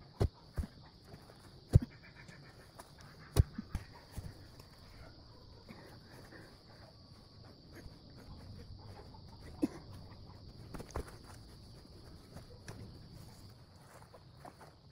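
Dull knocks of a digging tool driven into loose red soil, several in the first four seconds and two more later, between quieter scraping of earth by hand while digging out a wild bamboo shoot. A steady high insect drone runs underneath.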